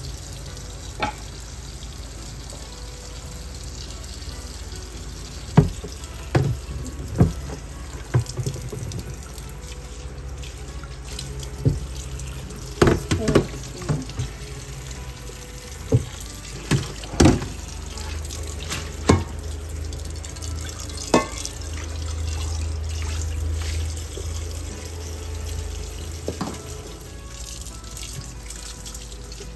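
Tap water running steadily over boiled dried red chillies in a stainless steel sink, as they are rinsed and their stems and seeds pulled off by hand. Scattered sharp knocks and clanks sound through it.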